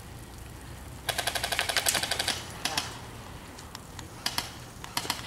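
Airsoft rifle firing on full auto: a rapid burst of about a second and a half starting about a second in, then a short burst and a few single shots near the end.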